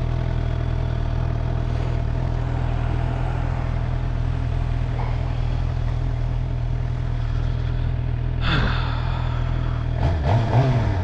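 2012 Suzuki GSX-R750's inline-four engine idling steadily while the bike stands still. There is a brief louder noise about eight and a half seconds in, and the engine note wavers near the end.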